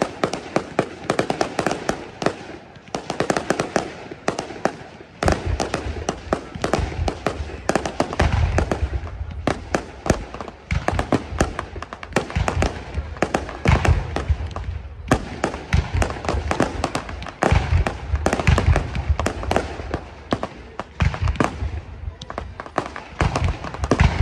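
Aerial fireworks display: rapid bangs and crackling throughout, with deep booming shell bursts joining from about five seconds in.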